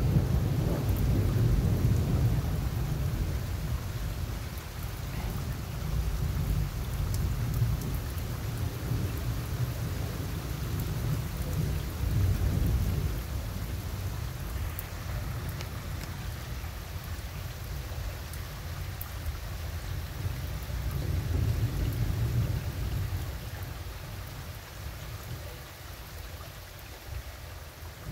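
Long rolling thunder rumbling low in several swells and dying away near the end, over steady rain.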